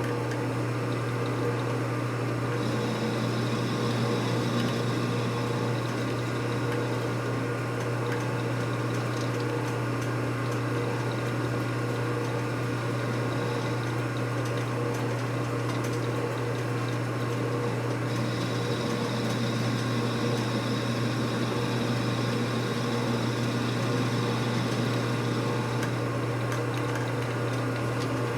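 A shop machine running steadily with a low hum and a liquid-pump sound. A thin high whine sits on top for much of the time.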